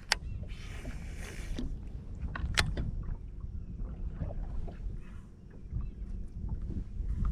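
Small fishing boat: sharp clicks and knocks of gear being handled, two of them standing out, over a steady low rumble, with a brief hiss about half a second in.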